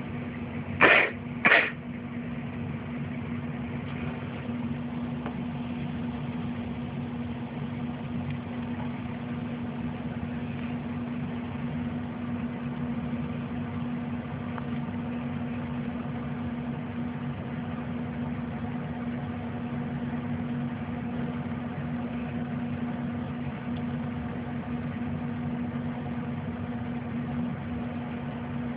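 Steady low machine hum. About a second in, two short loud noises sound half a second apart.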